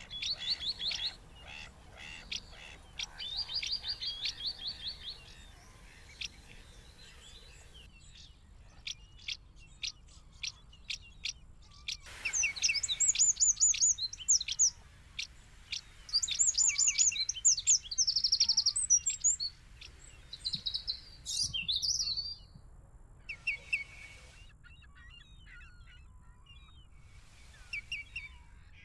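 Small birds chirping and twittering in quick high-pitched runs and trills, in several separate bouts that start and stop abruptly. The loudest, busiest bouts fall in the middle.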